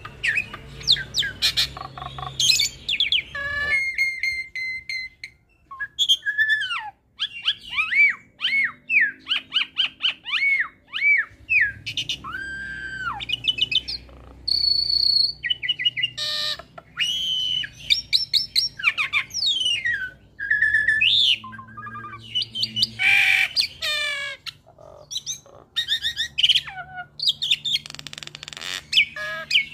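Hybrid jalak suren × jalak nias (Asian pied starling cross) singing a long, varied song: clear whistles sliding up and down, quick runs of repeated chirps, and a harsh rasping stretch about two-thirds of the way through.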